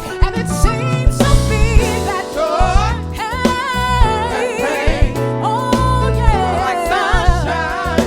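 Live soul band playing, with a lead singer holding long wavering notes with vibrato over bass and drums.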